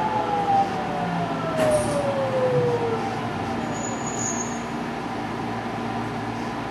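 A JR West 207 series commuter train's inverter and traction motor whine gliding down in pitch in two tones and dying away over the first three seconds, under the steady rumble of the train running along the track, heard inside the passenger car. A brief faint high squeal comes about four seconds in.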